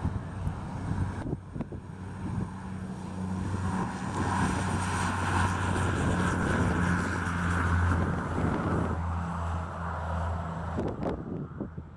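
Twin piston-engine propeller aircraft at takeoff power on its takeoff roll, a steady engine and propeller drone that swells as it passes close and fades as it moves off down the runway. Wind buffets the microphone.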